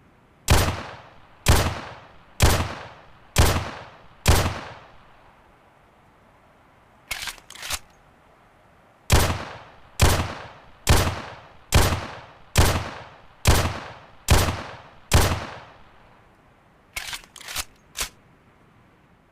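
11.4 mm pistol gunshot sound effects: five single shots about a second apart, each with a ringing tail, then eight more at a slightly quicker pace. Between the two strings, and again after the second, come a few short, quieter clicks.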